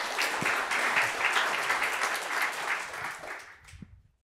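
Audience applauding, a dense patter of many hands clapping that fades out about three and a half seconds in and stops just after four seconds.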